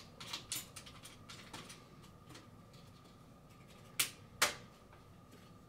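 Small metal clicks and taps from wing nuts and washers being threaded by hand onto the metal frame of a billiard light fixture. A quick run of light clicks comes in the first second and a half, then two sharper clicks about four seconds in.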